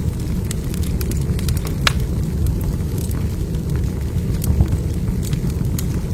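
Wood fire burning in a fireplace: a steady low rumble with scattered sharp crackles and pops, a few louder pops about two and four and a half seconds in.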